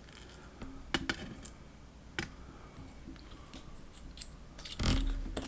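Small metal clicks and light taps as the pins and parts of a disassembled padlock are handled: a few sharp clicks a second or two in, then louder handling noise near the end.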